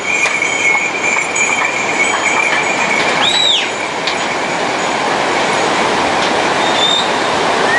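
Steady rush of the Milk River's white water below a suspension bridge. A thin high tone holds over the first half, and a short rising-and-falling whistle comes about three seconds in.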